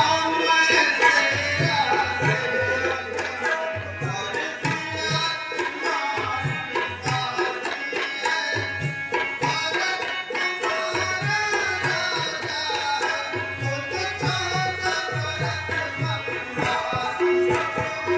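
Tabla playing a steady rhythm under sustained melodic instrumental accompaniment, as live stage music.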